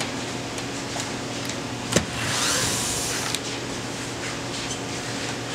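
Cordless drill/driver running for about a second, backing a screw out of the white interior trim of a door glass frame, with a sharp click as it starts and another as it stops. A steady low hum lies underneath.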